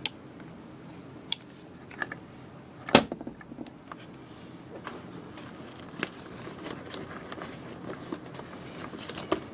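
Scattered sharp clicks and metallic clinks from small tools and wire parts being handled during soldering work, the loudest about three seconds in.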